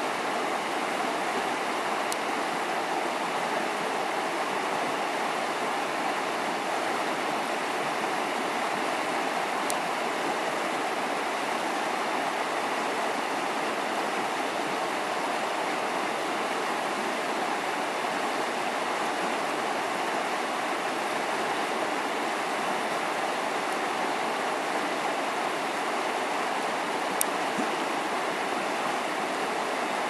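River water rushing over rocks and through shallow rapids: a steady, even rush with no pauses.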